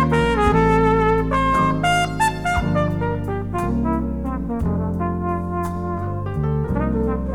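Jazz with a brass line playing a run of short, quick notes over a steady bass line.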